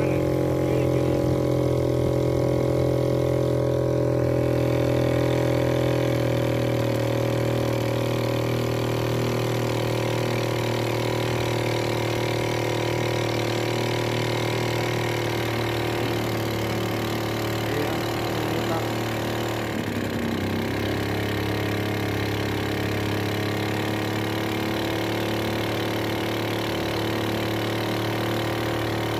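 Small single-cylinder engine of a homemade plastic-drum boat running steadily under way, driving the propeller. It dips briefly in speed once, about two-thirds of the way through.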